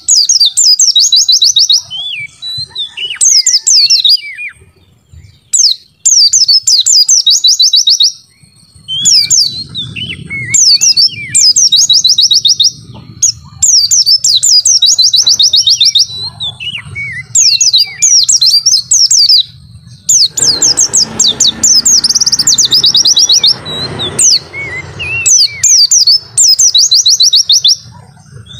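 White-eye (pleci) singing: loud, rapid, high trilled phrases repeated every second or two, with short lower chirps between them. A rough rushing noise sits under the song for a few seconds about two-thirds of the way in.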